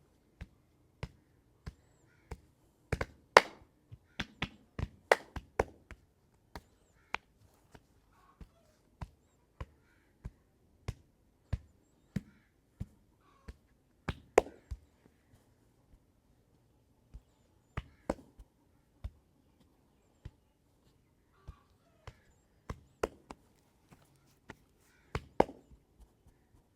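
Hands striking the head and back in a percussive massage: short, sharp slaps and taps, one or two a second in an irregular rhythm, with a few louder strikes and some quick runs of several.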